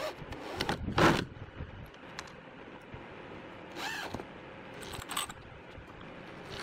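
Corded electric drill run in several short bursts as it bores into the wooden bed post, the loudest burst about a second in.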